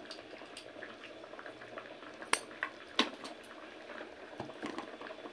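Masoor dal and bathua greens simmering in a steel pot, a soft steady bubbling, with a few sharp metal clinks, the clearest about two and three seconds in.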